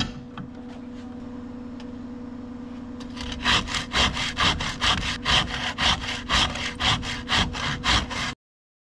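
A metal hand blade scraping shavings off a clamped block of fat lighter (resin-rich pine). Rapid, even scraping strokes, about four a second, begin about three seconds in and cut off suddenly near the end; before that there is only a faint steady hum.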